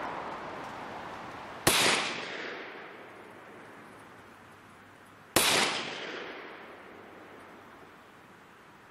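Two pistol shots from a Glock 30 firing .45 ACP, about four seconds apart, each followed by a long fading echo.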